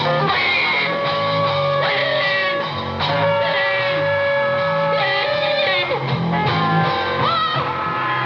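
Rock music from a punk band: electric guitar and drums, with a voice singing over them.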